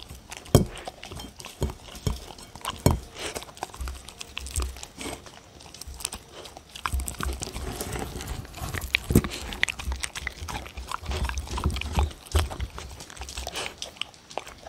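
A dog eating from a ceramic plate right at the microphone: wet chewing and licking with many sharp, irregular clicks of teeth and tongue against the plate as it licks up the last of a soft meal.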